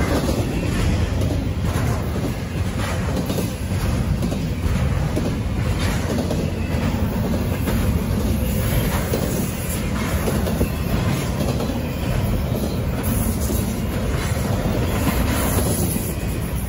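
Double-stack intermodal freight train rolling past, its steel wheels clicking over the rail joints in a regular rhythm above a steady rumble.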